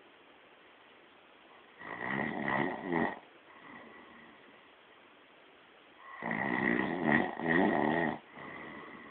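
Someone snoring: two loud, rattling snores about four seconds apart, each followed by a softer breath out.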